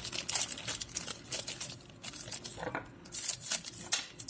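Rustling and crinkling of packaging as the microphone's small accessories are taken out and handled, in irregular bursts.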